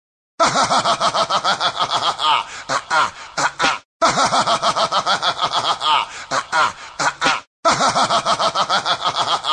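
A person's snickering laugh, a fast run of short breathy laugh pulses that slows and trails off, played three times in a row as a looped sound-effect clip.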